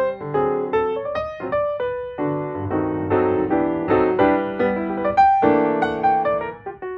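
Piano music: a melody over chords, notes struck and held with sharp onsets.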